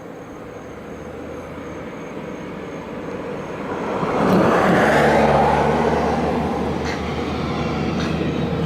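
A road vehicle driving past: its tyre and engine noise builds to a peak about five seconds in, with a falling pitch as it goes by, then a steady low engine hum carries on.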